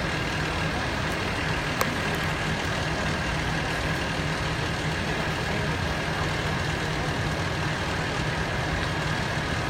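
Fire engine idling steadily: a constant low engine hum under a wash of outdoor noise, with a faint steady higher whine. A single small click sounds about two seconds in.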